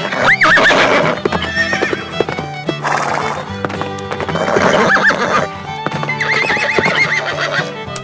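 Recorded horse neighs and whinnies over background music: a neigh just after the start, another around the middle, and a longer quavering whinny later, with hoofbeats clip-clopping.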